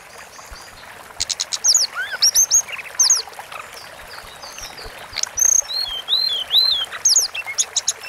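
Blue flycatcher (tledekan gunung) singing: a run of quick, high, clear notes with sharp upward strokes and arching slurs. The notes begin about a second in and come in short phrases.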